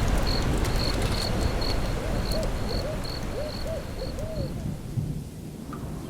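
Outdoor ambience: a high chirp repeating about three times a second and low swooping calls over a steady rushing noise, all fading down over the last seconds.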